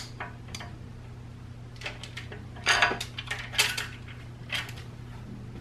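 Steel timing chain on a BMW M50 engine clinking and rattling against its sprocket and the cylinder head as it is lifted off the cam sprocket by hand. A few light clicks come first, then a flurry of metallic clinks in the middle.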